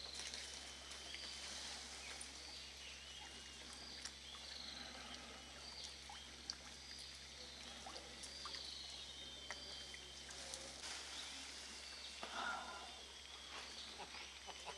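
Faint outdoor ambience of repeated short, high chirping calls over a steady hiss, with a few soft clicks and a brief louder call near the end.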